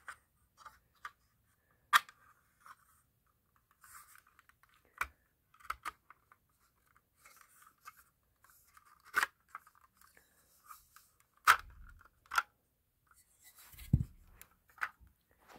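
Plastic smoke alarm being handled: a scatter of sharp plastic clicks and snaps with scraping between them, as the battery compartment is closed and the housing twisted.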